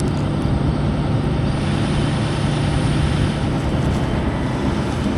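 Farm machine engine running steadily, with a constant low drone.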